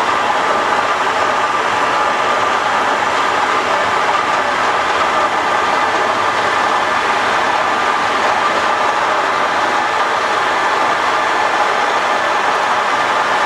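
Romi-Bridgeport EZ-Path CNC engine lathe running: a steady, even machine noise with a faint high whine, holding constant with no change in speed.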